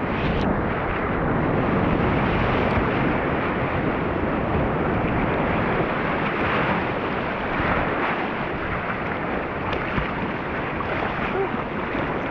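Swollen river water rushing through rapids: a steady, loud wash of whitewater.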